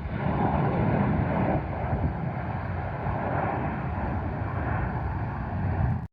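Aircraft engine noise: a steady rushing sound, loudest in the first second and a half, that cuts off suddenly near the end.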